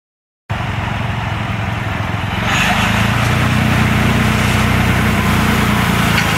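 Small tractor's engine running steadily as it tows a chain pasture harrow over gravel, the harrow's chains and tines dragging and scraping across the stones; the sound begins abruptly about half a second in.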